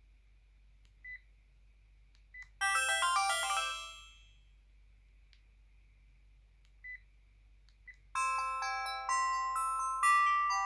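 Sharp GX12 mobile phone playing its built-in polyphonic ringtones through its speaker. A short chiming tune of several notes at once starts about two and a half seconds in and fades out after about a second. After a few short single beeps, another ringtone melody begins about eight seconds in.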